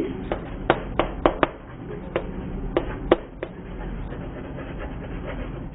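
Chalk writing on a chalkboard: a quick series of sharp, irregular taps as the chalk strikes the board, over a faint steady scratching hiss. The taps stop after about three and a half seconds.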